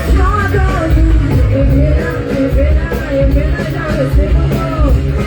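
Live band playing upbeat dance music, with a heavy pulsing bass beat under a gliding melodic line.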